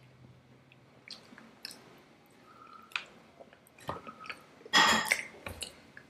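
Close-miked chewing and wet mouth sounds of people eating Indian sweets, with scattered small clicks. About three-quarters of the way through comes one louder, brief burst of noise with a short ring in it.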